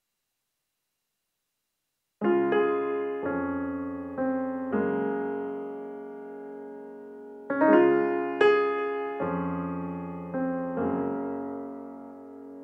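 Slow piano chords played on a digital keyboard, starting about two seconds in after silence, each chord left to ring and fade; a second phrase begins a little past halfway.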